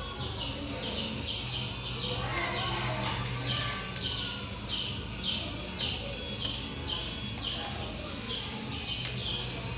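A small bird repeating a short falling chirp two to three times a second, over a low steady hum.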